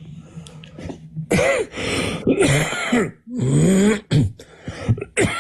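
A man's dry, hacking cough: a run of about four harsh coughs in a row, beginning a little over a second in.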